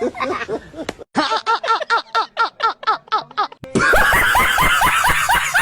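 Laughing sound effects played back to back: quick repeated 'ha-ha' syllables, several a second, each falling in pitch. About two-thirds of the way in a louder, harsher laugh takes over.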